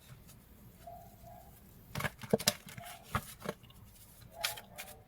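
Oracle and tarot cards being handled and laid down: scattered light clicks and taps of cards, a cluster about two seconds in and more near the end.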